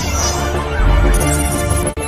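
Music with a strong bass and sustained tones, dropping out for an instant near the end.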